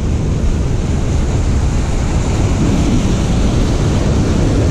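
Ocean surf breaking and washing against jetty boulders, with wind rumbling on the microphone.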